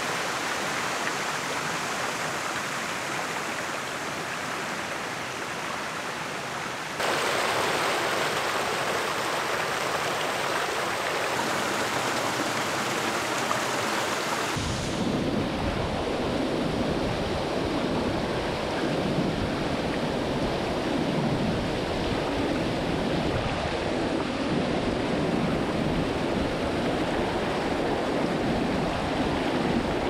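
Rushing water: a flooded creek pouring over a low rock ledge, then the heavy gush of water jetting from an opened dam sluice gate and crashing onto the rocks close to the microphone. The sound changes abruptly about 7 and 15 seconds in, from a steady rush to a louder one with a deep churning rumble.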